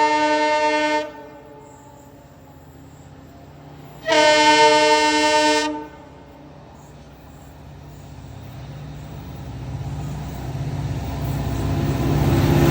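WDP-4D diesel locomotive's air horn sounding two blasts: one ending about a second in, a second of nearly two seconds starting about four seconds in. After them the rumble of the approaching train grows steadily louder.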